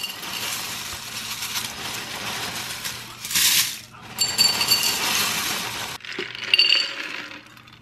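Dry-roasted peanuts and cornflakes being poured into a mixing bowl: a dense rattling, crackling pour, then further pours with a few short ringing clinks about four seconds and six and a half seconds in.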